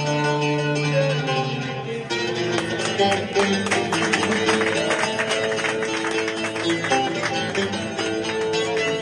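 Music played on a plucked string instrument, guitar-like. It opens with held notes, then quick plucked notes start about two seconds in and carry on.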